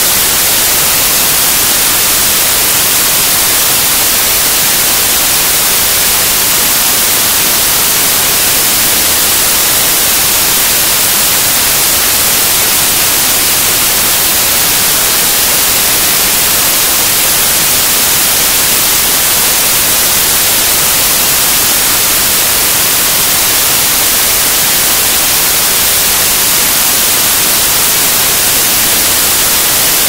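White noise: a steady, loud, even hiss, strongest in the high frequencies.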